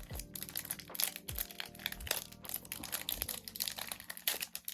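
Sealed foil trading-card pack crinkling and crackling as it is gripped and pulled at by hand, with a few soft knocks. The wrapper will not tear open in slippery fingers.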